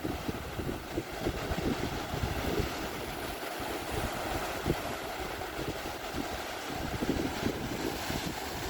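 Gusty wind buffeting the microphone: an uneven low rumble under a steady hiss.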